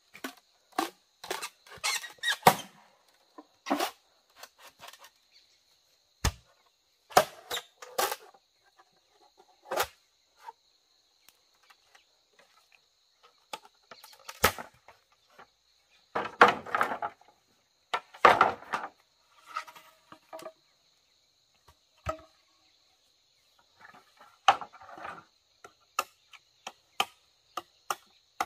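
Bamboo being cut and worked by hand: irregular knocks, taps and scrapes, some in quick clusters, with longer clattering stretches past the middle. A steady high insect drone sounds in the background.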